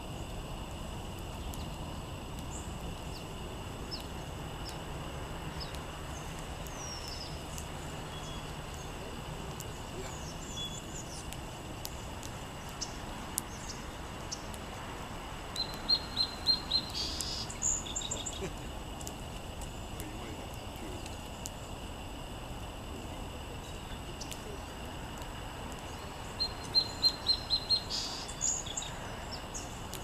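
A songbird sings the same short song twice, about halfway through and again near the end: a quick run of even notes followed by a higher burst. Faint scattered chirps sit over steady outdoor background noise.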